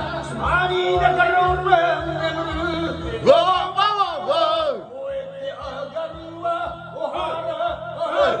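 A man sings karaoke into a microphone over a backing track with a steady beat, holding notes with a wide vibrato about three to four and a half seconds in.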